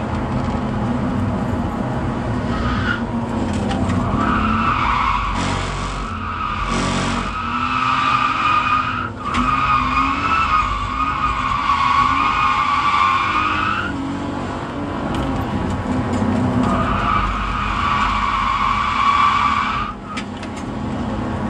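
Car engine running under load while the tyres squeal in two long, wavering slides, the first lasting about ten seconds and the second about three, as the car drifts through corners; heard from inside the car.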